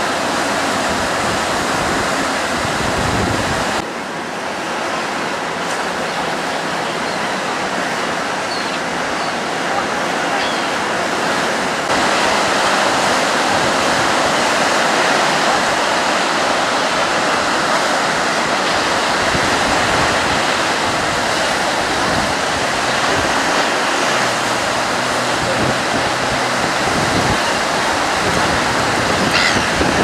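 Ocean surf breaking and washing ashore, a steady rush of white water. It gets louder about twelve seconds in.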